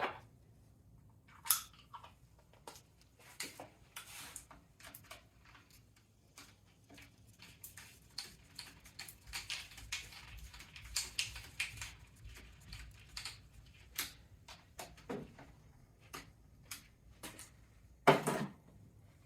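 Small-parts handling at a workbench as a nut is fitted onto the hinge pin of an RC truck's suspension arm: scattered light clicks, taps and scrapes of metal and plastic, with a sharper knock near the end.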